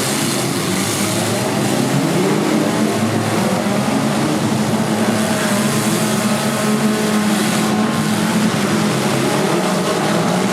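Engines of many four-cylinder demolition derby cars running and revving at once, a dense, steady mass of engine noise with pitches wavering up and down.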